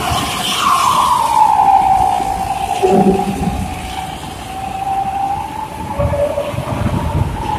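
Steady rumble of heavy vehicles over sea noise, with a long whine that falls in pitch about half a second in and then holds.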